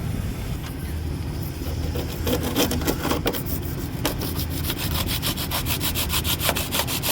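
A cutter blade sawing back and forth through foam filler packed into a rust hole in a car body, trimming it flush. The quick, even strokes start about two seconds in and grow stronger about four seconds in.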